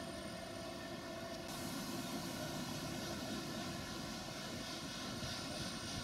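Steady rushing noise with a layered hum from an ICE high-speed train approaching; the hiss grows brighter and a little louder about a second and a half in.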